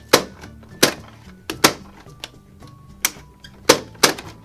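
Plastic toy popcorn maker being cranked by hand, its popping mechanism giving a sharp plastic clack about once or twice a second. Soft background music plays underneath.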